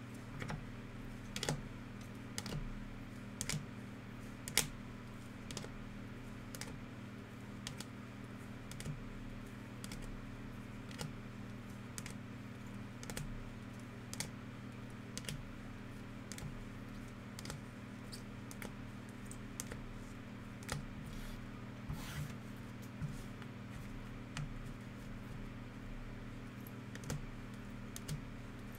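Rigid plastic card toploaders clicking against each other as a stack of sleeved trading cards is flipped through one card at a time, about one click a second, over a steady low hum.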